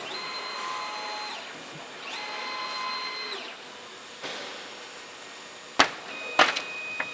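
Pattern cutting and plotting machine's carriage motors whining through two moves of about a second each, each ramping up and down in speed. Near the end come a few sharp clacks and a steady high tone.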